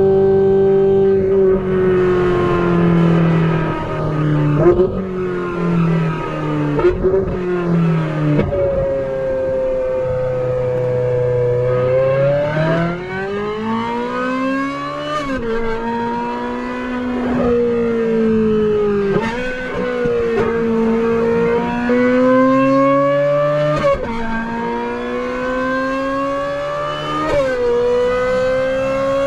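Ferrari 458 Italia's naturally aspirated V8 breathing through an aftermarket Brilliant exhaust at full throttle on a circuit. It holds a high pitch, then falls away with short blips through a run of downshifts. From about twelve seconds in it climbs hard through the gears, the pitch dropping suddenly at each upshift.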